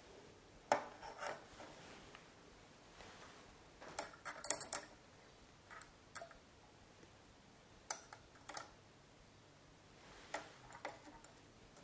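Light clinks and taps of laboratory glassware, a few at a time with pauses between, the busiest run about four seconds in: a glass pipette and a small glass flask of vinegar being handled at the bench.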